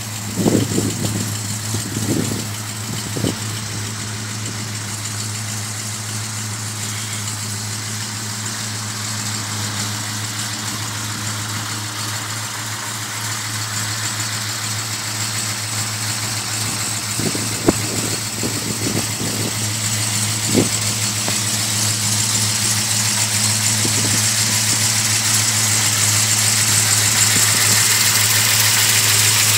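Bored 428 cubic-inch V8 of a 1969 Ford F-250, breathing through headers and a Magnaflow exhaust, idling steadily; it grows gradually louder toward the end.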